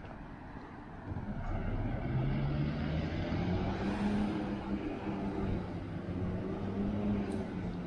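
Road traffic: a motor vehicle's engine gets louder about a second in and rises in pitch as it speeds up, then runs steadily.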